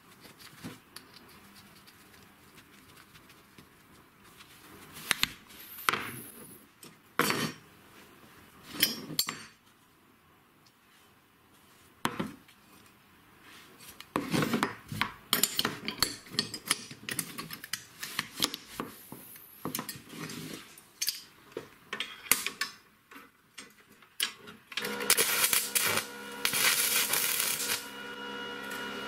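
Metal parts clinking and knocking against each other and a wooden workbench as gas struts and steel channel pieces are handled, in scattered sharp clicks with quieter pauses. Near the end, a steady hiss lasts about three seconds.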